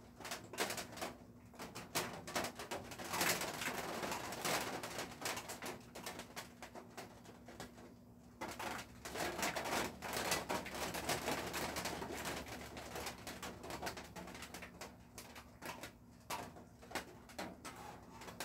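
Birds moving about: scattered clicks and scratches, with two longer stretches of rustling about three and nine seconds in.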